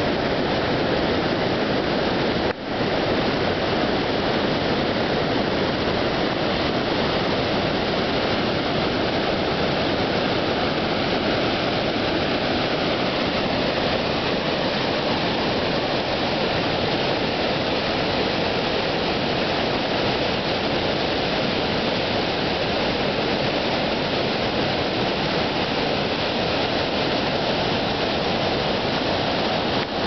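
Rapids of the Tourilli River in autumn flood, whitewater rushing over and between boulders in a steady, dense rush. The sound breaks off for an instant about two and a half seconds in.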